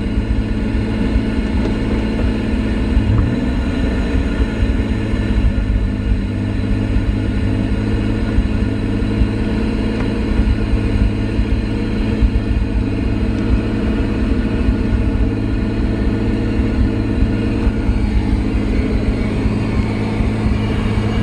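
Pontiac Fiero's engine running steadily, its pitch staying even with no revving.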